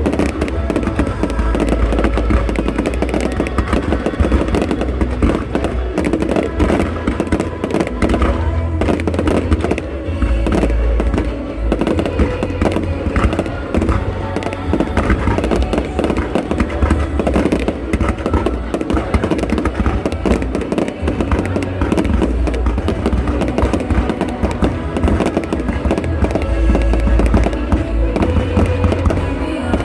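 Fireworks display: a continuous barrage of booms and crackling bangs, with music playing underneath.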